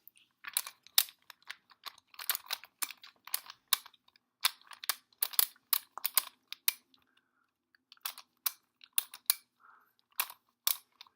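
Plastic twisty puzzle handled and turned by hand: irregular sharp plastic clicks and clacks in quick clusters with short gaps.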